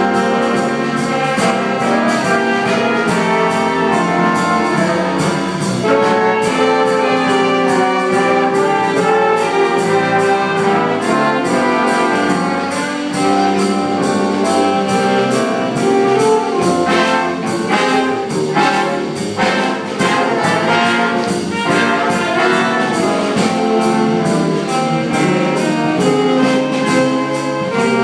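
A big brass band playing a jazz ballad: sustained trumpet and trombone chords over a steady beat, with brighter accented brass chords in the middle.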